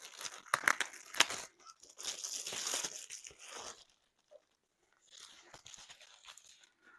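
Plastic packaging crinkling and rustling as a diamond painting kit is unpacked by hand, with a few sharp clicks in the first second or so, a longer rustle after that, a brief pause, then softer handling.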